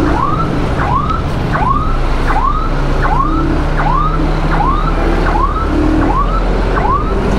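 Kawasaki KSR 110 ridden along, a steady rumble of engine and wind, with a short rising chirp repeating evenly about every 0.7 seconds over it.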